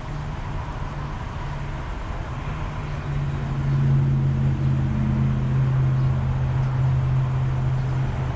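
Vehicle engine idling: a steady low hum that grows louder about three seconds in.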